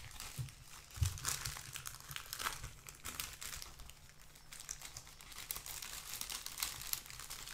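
Clear plastic bag crinkling irregularly as a paper decal sheet is slid out of it and handled, with a few louder crackles.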